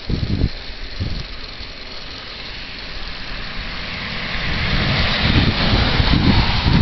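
Wind buffeting the microphone of a camera carried on a moving bicycle: an irregular low rumble and rushing hiss that grows louder from about halfway, after a few low thumps near the start.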